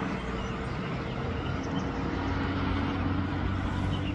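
Distant road traffic: a steady drone of vehicle engines with road noise.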